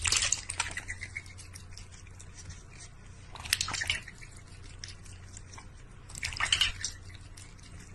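A cat lapping water from a stainless steel bowl: a quick run of small dripping laps, with louder spells at the start, about halfway through, and near the end.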